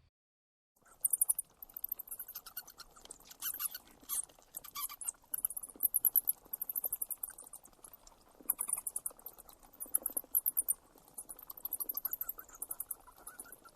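A small animal squeaking very high and fast in quick runs, starting about a second in.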